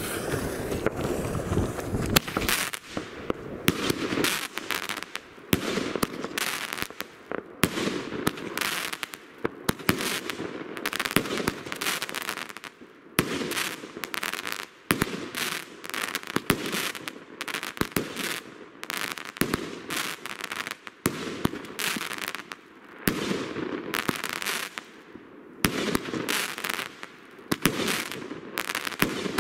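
Pyromax Ignis 19-shot 30 mm firework battery firing: a long, continuous run of launch bangs and bursts in the air, one after another without a break.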